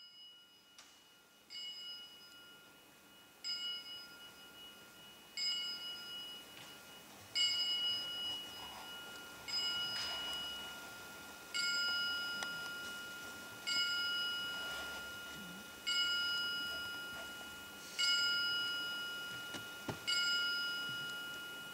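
A bell-like struck metal tone repeating about every two seconds, each stroke ringing on and fading before the next, the strokes growing louder as they go.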